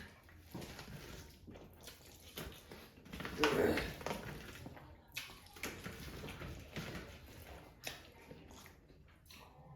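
Wet eating sounds from someone eating rice and egg curry by hand: scattered short clicks and smacks of chewing and fingers working the wet rice, with one louder, longer wet sound about three and a half seconds in.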